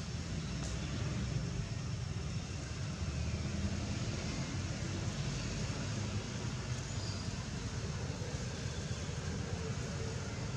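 Steady low rumble with a fainter hiss over it: unbroken outdoor background noise with no distinct event standing out.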